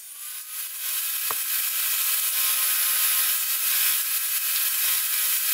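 Table saw running: a loud, steady, hissing whir that builds over the first second and then holds. There is a single sharp click about a second in.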